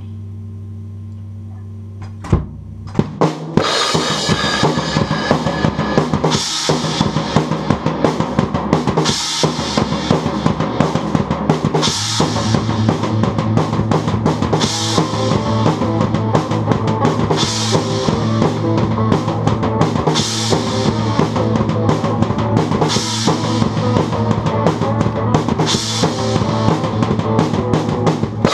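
Acoustic drum kit played along with a song. It opens on a low held note, then a few single hits, and from about three seconds in a full steady beat of kick, snare and cymbals runs with the music, with crash cymbal accents about every three seconds.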